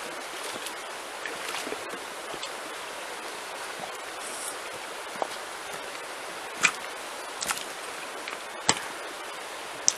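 Shallow stream running steadily over stones, with a handful of sharp clacks in the second half as someone steps across the stony bank carrying a bucket.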